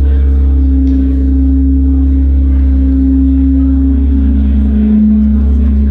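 Live electronic drone music from a synthesizer: a loud, steady deep bass drone under long held tones. The upper tone steps down in pitch about four seconds in.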